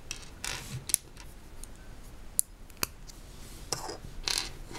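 Small Lego plastic pieces being handled and pressed together: a few sharp clicks, one near the start and two in the middle, with short scraping and rustling between them as the cat's eye pieces are fitted on.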